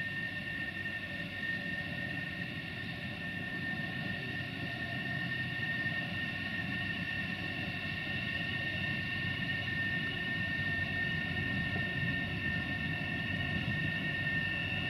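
Hybrid shunting locomotive (LHY-M, built by Euroest) running slowly, with a steady high-pitched whine over a low rumble that grows gradually louder as it comes closer.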